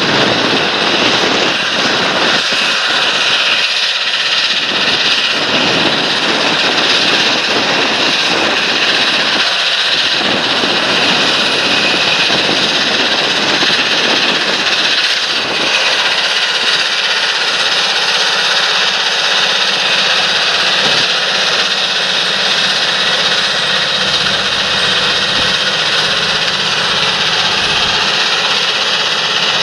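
Large John Deere tractor working in the field: a steady engine drone with a constant high whine over it.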